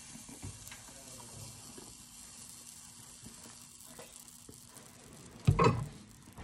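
Pancake batter sizzling faintly and steadily in a hot skillet, with small crackles. About five and a half seconds in, a single loud thump stands out above it.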